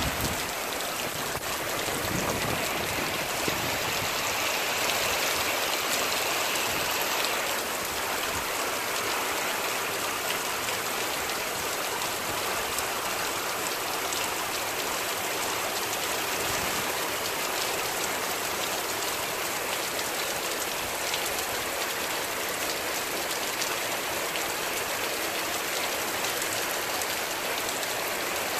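Heavy downpour: a steady hiss of rain pelting wet asphalt and puddles.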